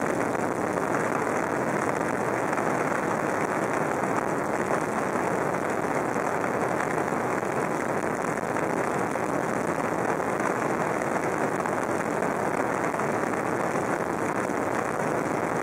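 Steady cabin noise of an aircraft in flight: an even, unbroken drone.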